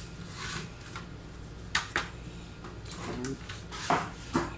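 A few sharp clicks and knocks, twice near the middle and twice near the end, as the opened plastic case of a large LED digital wall clock is handled and turned around on the bench, over a steady low hum.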